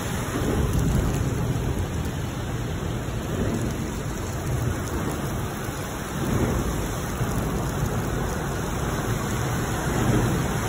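Loud, steady low rumble with a rain-like hiss underneath a large bridge, swelling a few times: about half a second in, around six seconds in and near the end. The noise is likely rumble from the bridge deck overhead mixed with water falling from it.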